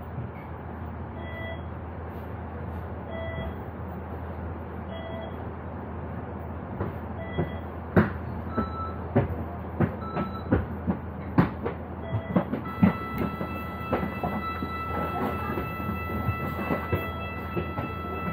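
A bus engine idling steadily at the terminus, with short beeps every couple of seconds. In the second half comes a run of knocks and clicks as passengers step off. A steady high whine starts about two-thirds of the way in.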